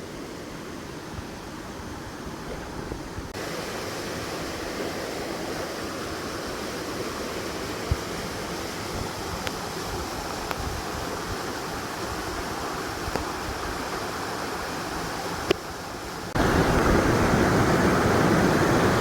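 Floodwater rushing down a rainforest trail: a steady rush of water that jumps abruptly louder about three seconds in and again near the end.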